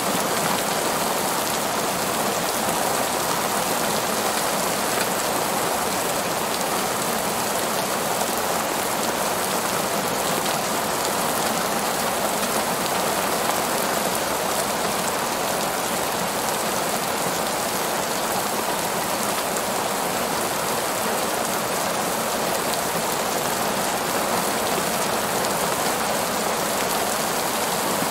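Heavy rain falling steadily on a parking lot: an even, unbroken hiss of water on hard pavement.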